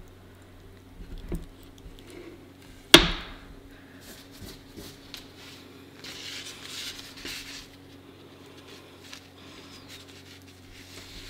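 A knife cutting into and lifting out raw honeycomb: sticky crackling and tearing of the wax comb, louder for a second or so past the middle as the chunk comes free. About three seconds in there is one sharp knock, the loudest sound.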